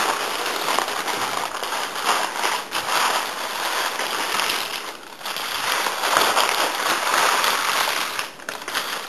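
Tissue-paper packaging crinkling and rustling as it is pulled open and unfolded by hand, with a couple of brief pauses.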